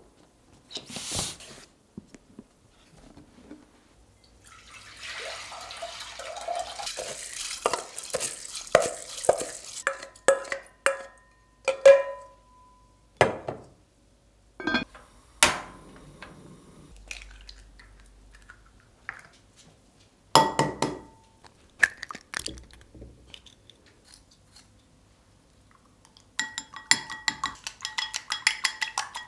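Water poured from a stainless steel bowl into a black stone pot, with clinks and knocks of the metal bowl against the pot. Near the end, chopsticks beat eggs fast in a glass bowl, a quick run of ringing ticks.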